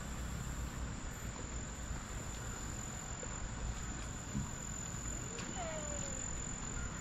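A steady high-pitched insect trill, typical of crickets, over a low background rumble, with a faint short falling whistle about five and a half seconds in.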